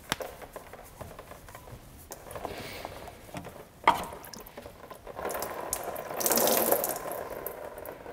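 Diesel fuel pouring and splashing into a drain pan as a spin-on fuel filter is unscrewed and taken off, with a sharp click about four seconds in. The pouring starts about five seconds in and is loudest a second or so later before tapering off.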